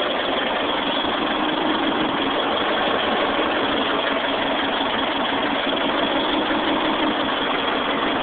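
Caterpillar D5H XL bulldozer's diesel engine idling steadily.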